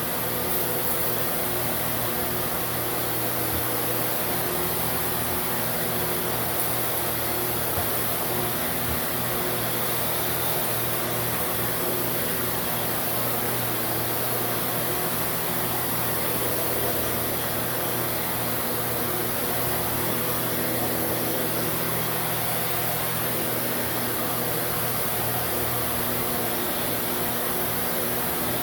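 Hoover Hushtone CH54113 upright vacuum cleaner running steadily while vacuuming carpet, a constant motor hum and airflow hiss.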